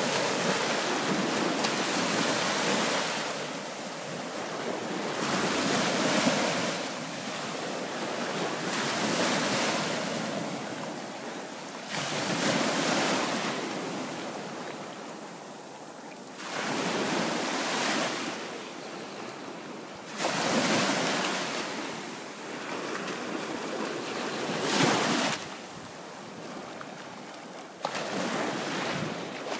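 Small waves washing up and back over a sandy beach at the waterline, in rushing surges every three to four seconds.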